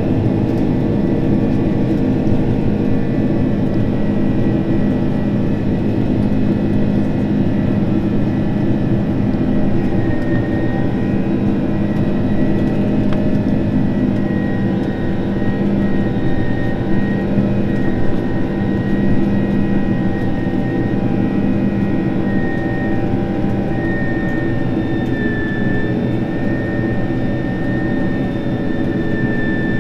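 Inside the cabin of a Boeing 767-300ER climbing after takeoff: the steady rush of its jet engines and airflow, with a thin high whine that grows a little stronger about a third of the way in.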